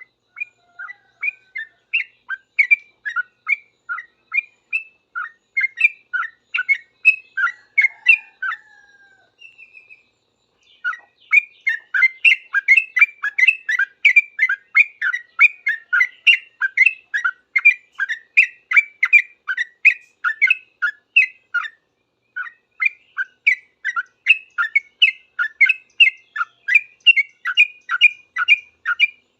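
Yellow-vented bulbul (trucukan) singing in rapid 'ngropel' style, a fast run of short chirpy notes several a second. The song pauses about nine seconds in, resumes denser about two seconds later, and breaks briefly again near twenty-two seconds.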